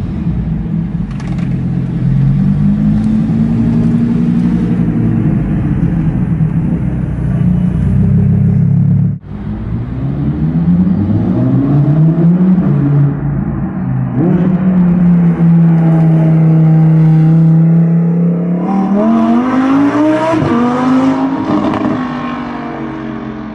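Lamborghini Huracán Performante's naturally aspirated V10 revving and accelerating, its pitch climbing and dropping repeatedly through the gears. The sound cuts off sharply about nine seconds in, later holds one steady note for a few seconds, then climbs again under hard acceleration near the end.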